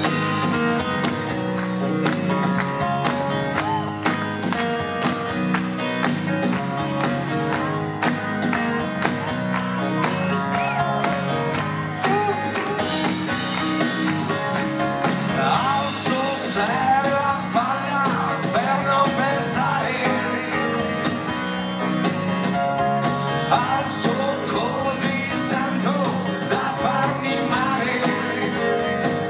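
Live band playing an instrumental passage: electric bass, plucked guitars and drums. Partway through, a wavering lead melody line comes in over the band.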